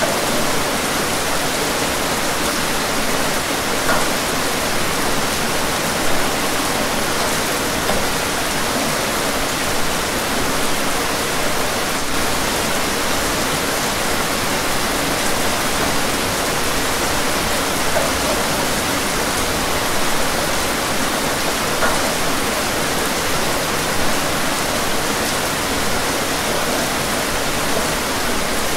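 Steady rain falling on a window pane, a dense even hiss with now and then a single louder drop.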